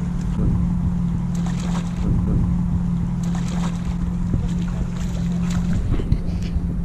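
A steady low motor hum, as from a boat engine idling, with wind rumbling on the microphone and a few brief splashes of water at the surface.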